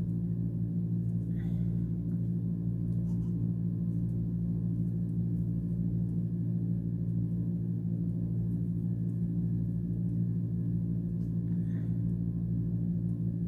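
Steady low hum made of several unchanging tones, level throughout, with a couple of faint light ticks.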